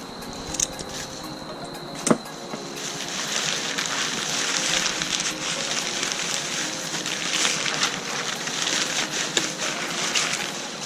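Dense rustling and crinkling of a tangled item being pulled and untangled from its packaging, rising about three seconds in and going on with many small crackles, after two sharp clicks in the quieter first seconds.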